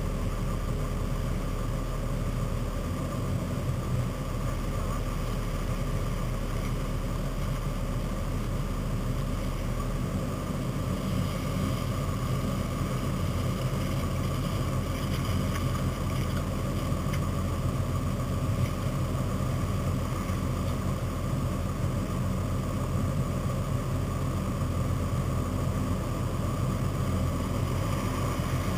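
Four-wheel-drive truck engine running steadily at low revs, a constant low hum.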